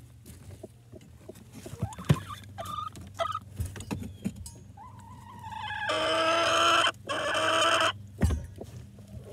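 Hens in a wooden nesting box making short clucking notes amid scattered knocks and scratches as they shift about. Two long, loud calls follow, about six and seven seconds in.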